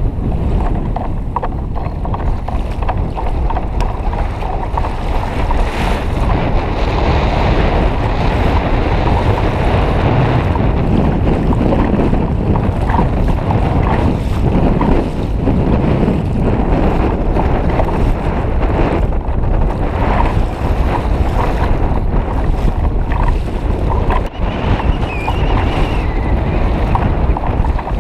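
Strong wind buffeting the microphone, over water splashing and rushing along the hull of a kayak on choppy sea.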